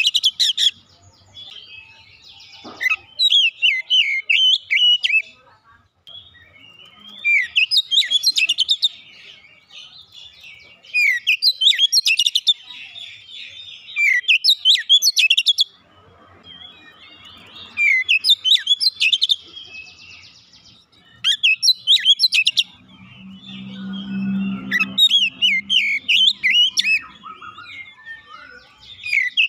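Oriental magpie-robin singing in full, continuous song. It gives repeated loud bursts of rapid chirps and whistles, each a second or two long, every three to four seconds. A faint low hum comes in about three-quarters of the way through.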